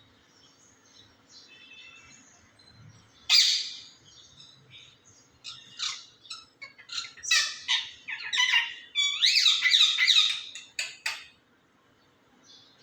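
A parrot calling. Soft chatter comes first, then one loud call about three seconds in, then a run of loud, repeated calls with rising and falling pitch from about five to eleven seconds.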